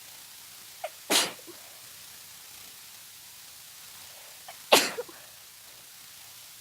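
A person sneezing twice, about three and a half seconds apart, each sneeze with a short sound just before it; the second sneeze is the louder.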